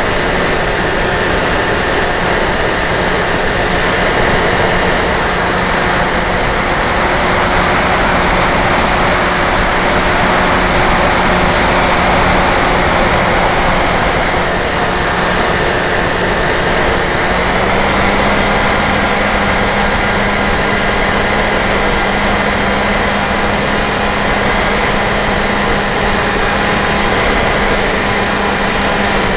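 Electric motor and propeller of an FPV RC plane, a Dynam Hawk Sky, running steadily in flight with wind rushing over the airframe, picked up by the onboard camera. The motor's steady hum steps up slightly in pitch a little over halfway through.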